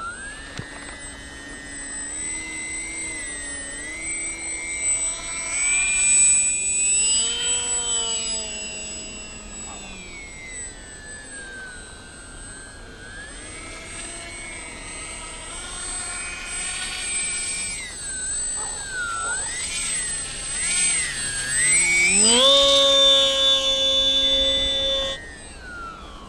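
Polaris RC parkflyer seaplane's electric motor and propeller whining in flight, the pitch rising and falling as the plane passes and the throttle changes. Near the end it holds a steady tone, then cuts off suddenly as the motor is shut off for the landing on snow.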